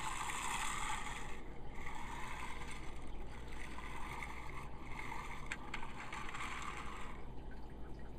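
Die-cast Percy and two trucks being pushed along plastic toy track: wheels rolling and clattering in several stretches, with two sharp clicks about five and a half seconds in.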